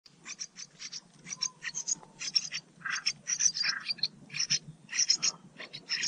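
Bulbul nestlings begging: a fast, continuous run of short, high-pitched chirps, several a second, coming in clustered bursts.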